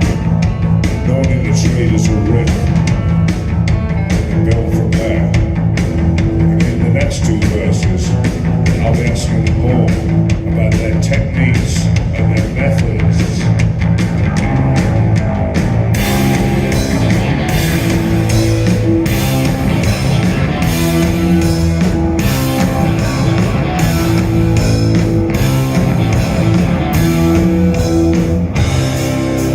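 Rock music with guitar and drum kit, playing loudly and continuously. About halfway through it becomes brighter and fuller.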